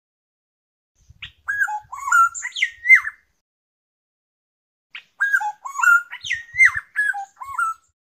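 Black-naped oriole singing: two phrases of whistled notes sliding up and down, the first starting about a second in and the second about five seconds in, separated by a pause of about two seconds.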